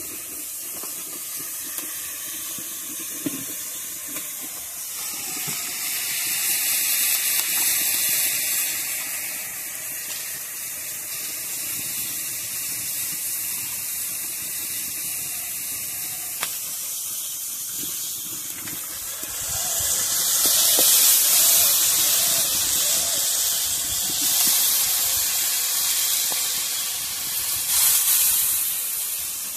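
Food sizzling in hot oil in a steel wok over a wood fire. About 20 seconds in, freshly washed, wet green mango pieces go into the wok and the sizzle grows much louder, easing off but carrying on, with a second loud spell near the end.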